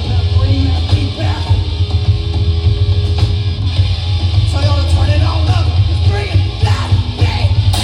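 Loud live rock band playing, with a heavy, steady bass and shouted vocals coming in about halfway through.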